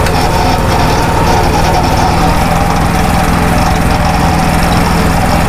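Small sugarcane juice press running steadily with a constant machine hum as a stalk of cane is fed through its steel rollers.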